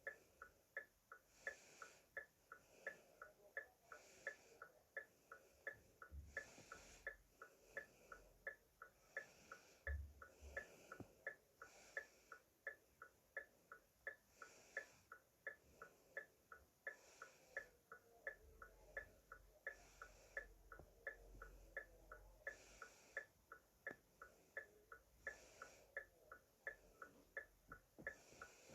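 Car hazard warning lights' flasher relay clicking on and off in a steady, even rhythm of about two to three faint clicks a second.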